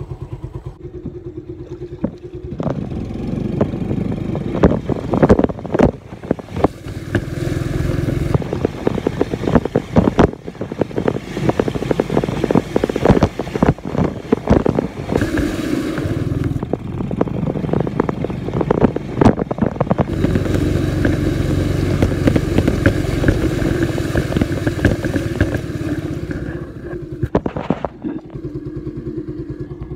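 Small motor scooter engine running steadily, with many knocks and rubbing noises close to the microphone.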